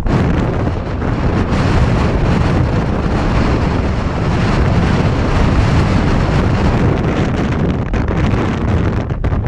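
Strong wind buffeting the microphone: a loud, continuous rumbling rush that eases briefly a couple of times near the end.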